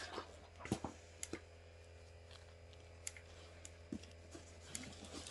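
Faint, scattered clicks and taps of makeup products and packaging being moved about by hand, over a low steady hum.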